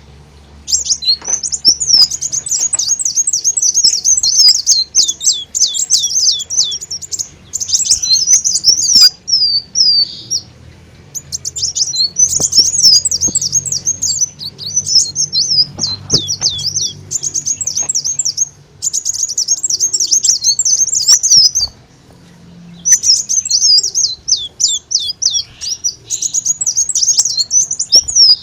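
Recorded song of a kolibri daun sunbird, played as a lure call: rapid, high-pitched twittering in long runs broken by a few short pauses.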